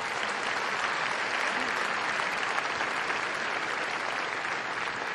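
Large audience clapping steadily together.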